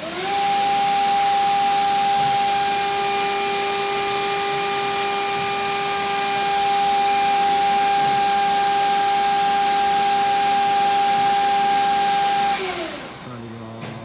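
FANUC Robodrill α-D14LiB5 machining centre's spindle spinning up almost at once and running at a steady speed, a high whine over a loud hiss. Near the end it winds down with a falling pitch and stops.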